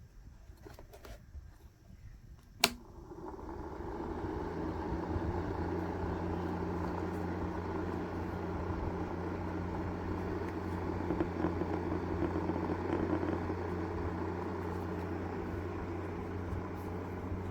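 A sharp click, then a small electric fan motor spinning up and running with a steady whir and low hum, as in a homemade mini air conditioner model being switched on.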